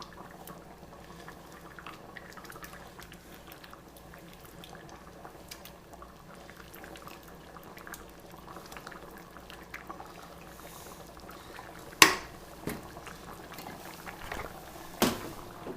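French onion soup simmering in a Dutch oven, a steady bubbling with many small pops. Near the end, two sharp knocks about three seconds apart stand out above it.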